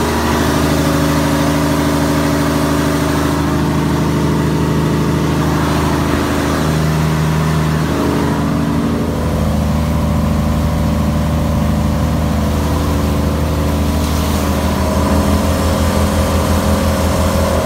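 Fishing boat's diesel engine running loudly inside the engine room: a steady, layered drone. Its tone shifts about halfway through, and a low throbbing beat comes in near the end.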